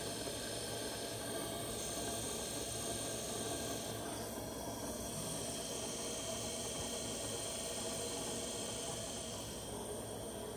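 Cincinnati universal tool and cutter grinder's spindle running with a steady hum and hiss, with no knocking or vibration, a sign of a spindle in good order. The sound drops slightly near the end.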